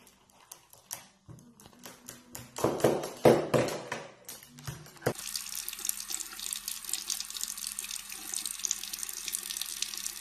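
Irregular sharp clicks with a few louder bursts, then, about five seconds in, a bathroom faucet starts running steadily into a sink.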